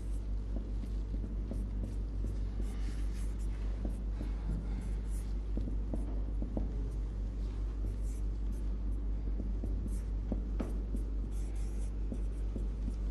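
Marker pen writing on a whiteboard in short, irregular strokes, over a steady low hum.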